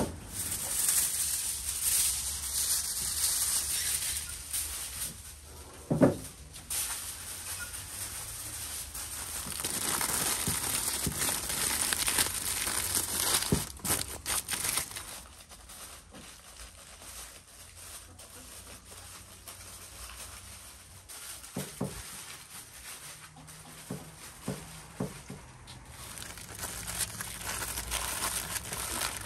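Aluminium foil crinkling and crumpling as hands fold and press it into a tight wrap. It is loudest in the first few seconds and again around the middle. There is one sharp knock about six seconds in and a few lighter knocks later.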